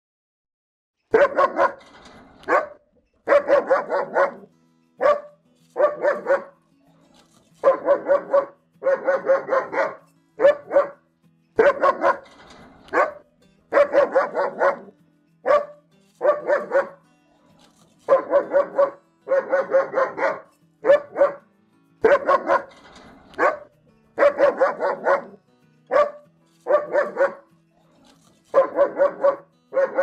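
A German Shepherd barking over and over, starting about a second in. The barks come singly or in quick runs of two to four, with short pauses between.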